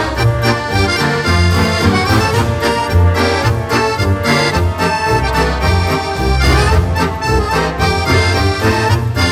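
Instrumental music led by an accordion, folk-style, with a steady beat.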